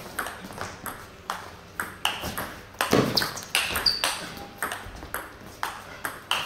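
Table tennis rally: the celluloid ball clicks sharply off the bats and the table in quick alternation, about two clicks a second, with a heavier knock about three seconds in and a few short squeaks of shoes on the hall floor.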